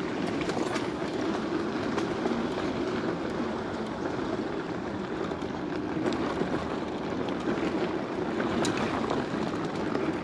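Gotrax GX1 dual-motor electric scooter riding over a loose dirt and gravel trail: a steady rumble of the knobby tyres on the ground with constant small rattles and clicks from the scooter's frame and parts.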